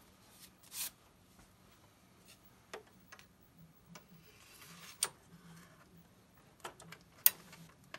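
A floppy disk being slid into the slot of an Atari 810 disk drive and the drive's door latch pushed shut: a few scattered light clicks with a brief rustle of the disk going in, the sharpest click near the end.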